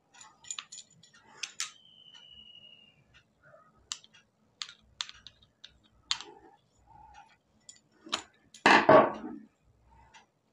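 Small metal clicks and taps, scattered and irregular, as sewing machine shuttle parts and a screw are fitted back and tightened, with one louder short rasp near the end.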